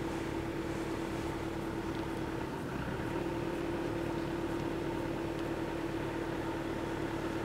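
Level-crossing warning bells sounding one steady electronic tone while the crossing is closed, warning that a train is approaching. The tone wavers briefly about two and a half seconds in.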